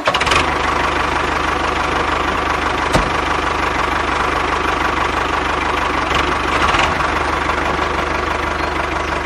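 Tractor engine running steadily at idle, with a fast, even beat.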